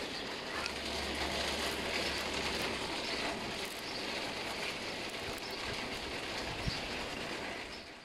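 Rock tumbler running: stones rattling and sliding over one another inside the rotating barrel in a steady clatter.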